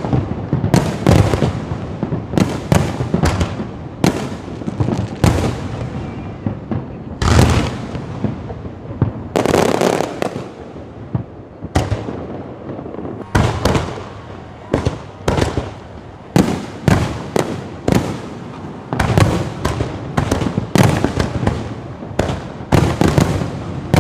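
Fireworks display: shells bursting in quick, irregular succession, each bang trailing off. The bursts thin out for a few seconds just past the middle, then come thick again.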